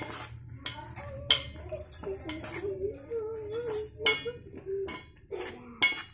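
Metal spoon scraping and clinking against the sides of a metal pot while grated carrots are stirred for gajar ka halwa: irregular clinks and scrapes, with sharper knocks about a second in, around four seconds and near the end.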